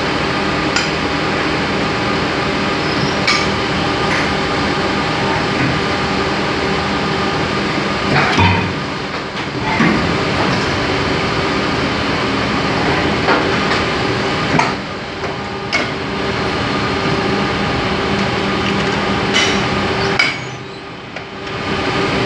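Shoe-sole injection molding machine running with a steady hum from its hydraulic pump and motor, with sharp metal clanks and knocks every few seconds as the mould is handled and the machine cycles. The hum dips briefly near the end.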